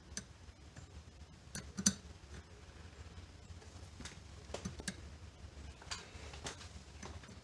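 A few scattered light metallic clicks and ticks as a coil thread-repair insert and its insertion tool are worked against a tapped hole, the sharpest about two seconds in. The insert will not thread in.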